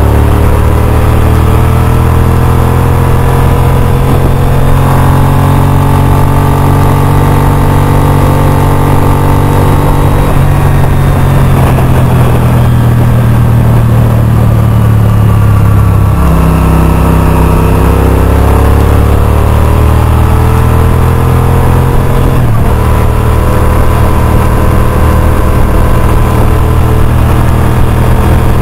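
Honda RC51's 90-degree V-twin motorcycle engine running at road speed, its pitch rising and falling with the throttle and changing abruptly several times, with a sharp drop about sixteen seconds in.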